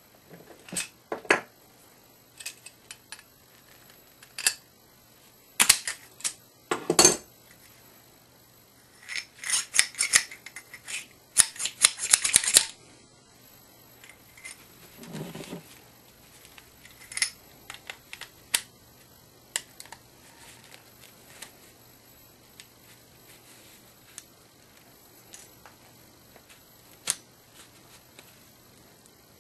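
Metal clicks and clatter from handling and squeezing an olive puller on copper pipe and compression olives: scattered sharp clicks, a dense run of rapid clicking about nine to thirteen seconds in, and a duller scrape around fifteen seconds.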